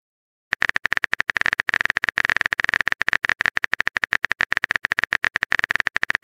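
Rapid phone-keyboard typing clicks from a texting app, many short taps a second, starting about half a second in as a message is typed out.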